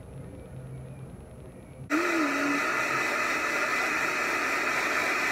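Handheld hair dryer switched on suddenly about two seconds in, then blowing steadily on the hair.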